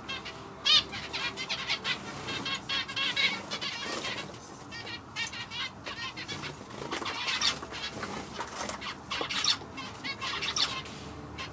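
Male zebra finch singing and calling: a quick, continuous string of short chirping notes.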